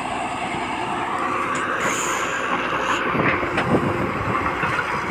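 Tata Hitachi EX200LC excavator's diesel engine running under load with its hydraulics working, a steady heavy-machine din that swells a little past the middle.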